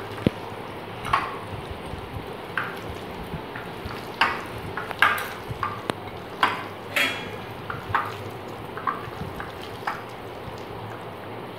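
A hand squishing and turning raw chicken pieces in a wet spice marinade in a glass bowl, working the masala into the meat. Irregular squelches and wet slaps come about once a second.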